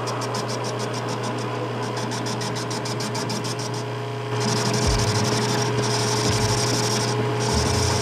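Metal lathe running with a thick steel tube spinning in its chuck: a steady motor hum with a fixed tone over it and a fast regular ticking. About four seconds in, a louder hiss joins as the tool starts cutting the end of the tube.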